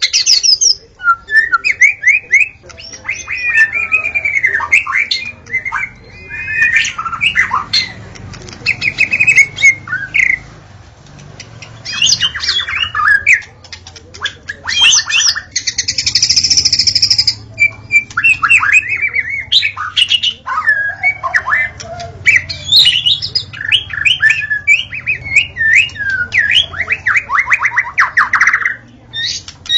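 White-rumped shama singing a long, varied song in full voice: rich whistled phrases, fast trills and harsh buzzy notes, separated by short pauses.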